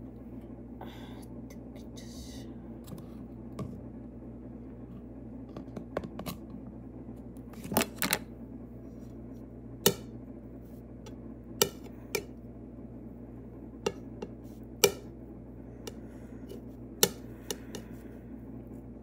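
Table knife clicking and scraping against a plate and bread while spreading butter: a dozen or so sharp taps, a second or two apart, over a steady low hum.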